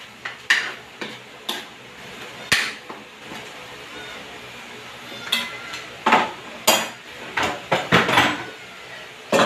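Kitchen utensils, pots and dishes clattering as they are handled: a dozen or so irregular clinks and knocks, with a cluster of louder ones in the second half.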